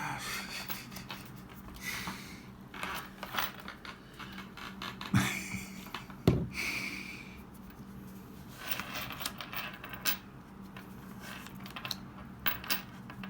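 Small rustles, scratches and clicks of trading cards and booster-pack foil being handled and slid through by hand, with two sharper knocks about five and six seconds in.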